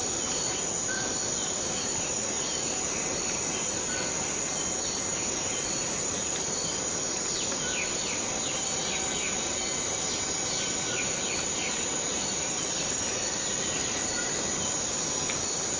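Steady rain with a continuous high-pitched insect drone. About halfway through, a run of short falling chirps rises over it for several seconds.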